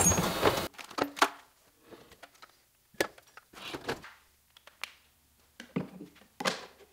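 A table-mounted router spinning a large chamfer bit runs for the first moment and cuts off abruptly. Then metal tool chest drawers are pulled open and pushed shut in a few sharp knocks and rattles. Near the end a hot glue gun is handled on a wooden bench with a couple of knocks.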